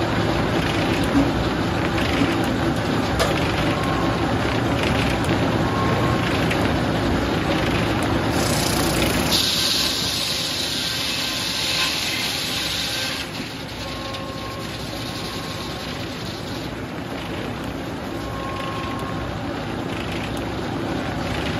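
Sawmill's large circular head saw spinning with the mill's power running, a steady mechanical din. About halfway through the low rumble drops away and a hiss takes over for a few seconds, then it runs on a little quieter.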